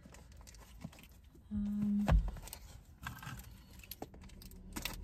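A small taped cardboard parcel being opened with a car key: faint scrapes, rustles and a few light clicks. About one and a half seconds in, a short hummed note that is the loudest sound.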